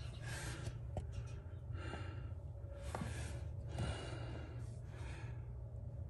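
A man breathing, a soft hissing breath about every second, with a few faint clicks over a steady low hum.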